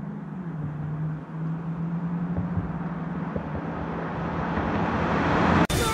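A car approaching at a steady speed: a steady low engine drone and tyre noise grow louder as it nears, then the sound cuts off suddenly near the end.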